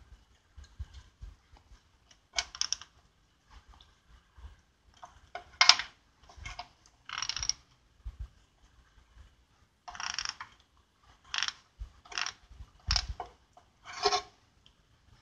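Husky 100-position socket ratchet clicking as it turns a bolt. It goes in repeated short bursts, each under a second, with pauses between strokes.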